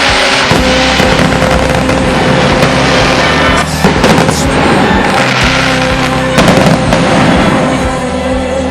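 A fireworks display played backwards: dense crackling and swelling blasts, with sharp cracks about four seconds in and again past six seconds, over a music track with sustained tones.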